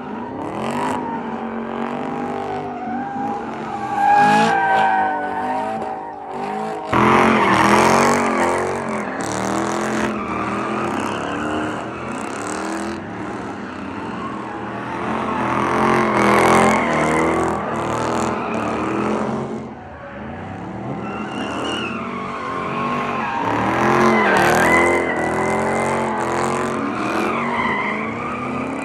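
Cars drifting and doing donuts, engines revving hard with pitch swinging up and down over and over, and tires squealing as they slide. It gets suddenly louder about seven seconds in.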